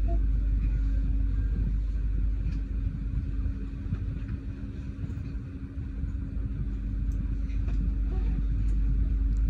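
Steady low rumble of a motor vehicle on the move, easing a little around the middle before building back up.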